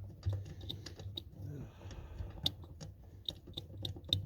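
Ratchet with an 8 mm socket clicking in short, uneven runs of strokes, a few clicks a second, as the accelerator pedal's mounting bolts are undone.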